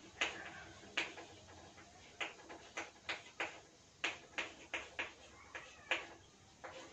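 Chalk tapping and scraping on a chalkboard as a formula is written: a series of short, sharp taps at irregular intervals, a few per second.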